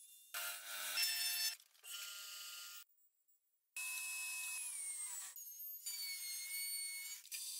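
A quick string of short workshop power-tool sounds, each starting and stopping abruptly, with a brief gap of silence about three seconds in. Just after the gap, a band saw runs with a steady whine as it cuts a curved piece of wood.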